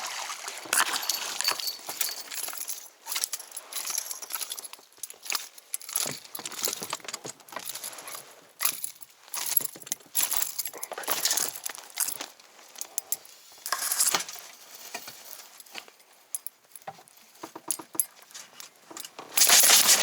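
Irregular clicking and clinking in uneven clusters, which grows louder and denser near the end.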